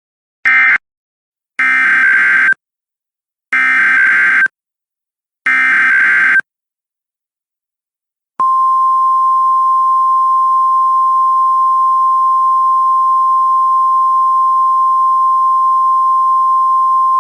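Emergency Alert System (SAME) signalling. A last short data burst from an end-of-message code comes first, then three roughly one-second digital header bursts about two seconds apart. After a short gap, a steady single-pitch warning alarm tone starts about eight seconds in and holds; this is the National Weather Service 1050 Hz tone that opens a new tornado warning.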